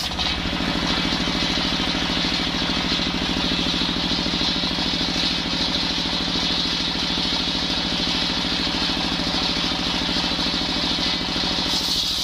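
Single-cylinder stationary diesel engine running steadily, driving a table circular saw blade as it rips coconut wood into beams.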